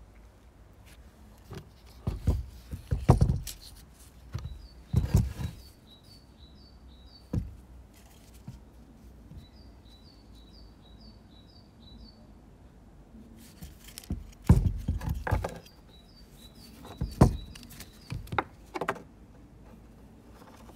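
A small bird singing short runs of quick, high chirps, each run of four to six notes, repeated several times. Over it come irregular loud thumps and low rumbles, the loudest sounds, clustered around two to five seconds in and again from about fourteen to nineteen seconds.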